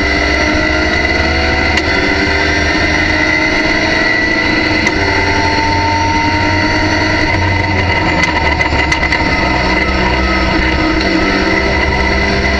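Racing car engine heard from inside the cockpit, pulling hard with the pitch climbing and two quick upshifts, about two and five seconds in. Near the middle it holds high revs, then after some sharp clicks it falls away under braking with downshifts. A steady high whine sits over the engine.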